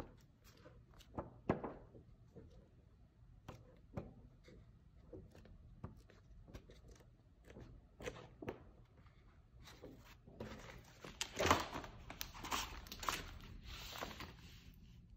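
Pages of a large hardcover book being turned and handled by hand: scattered soft paper rustles and light taps. About ten seconds in comes a louder, denser spell of rustling and handling as the book is shut, with its loudest moment a little after eleven seconds.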